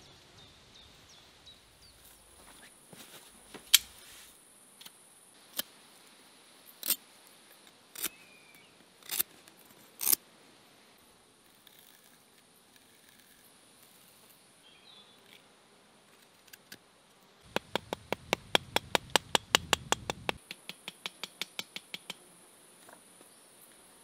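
A folding knife cutting into a green linden stick: six sharp clicks about a second apart. Later comes a quick run of light taps, several a second, for about four seconds: the bark being tapped to loosen it for a whistle. A faint steady high insect buzz sits underneath.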